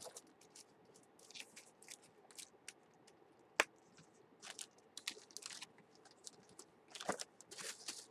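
Items and packaging being handled: scattered light clicks, taps and rustles, with one sharp click about three and a half seconds in and a burst of rustling near the end.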